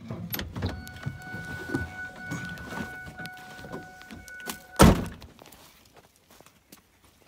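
A pickup truck door slammed shut about five seconds in, the loudest sound. Before it come small knocks and rustles and a steady high tone that stops just before the slam.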